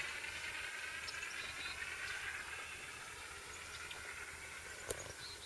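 RC model Cessna 182 in flight at a distance, giving a steady engine drone that slowly fades as it flies away. There is a faint click near the end.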